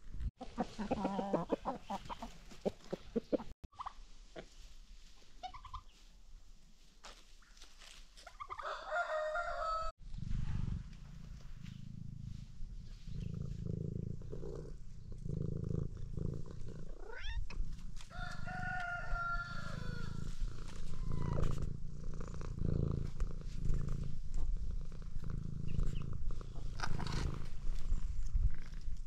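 A domestic cat purring right at the microphone: a low, steady rumble that starts about ten seconds in and carries on. A rooster crows twice over it, around nine and nineteen seconds in, and another call comes near the start.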